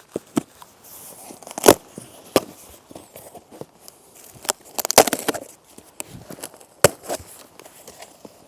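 Cardboard shipping box being opened by hand: sharp snaps and knocks of the cardboard, with a longer tearing rustle about five seconds in as tape or packing is pulled away.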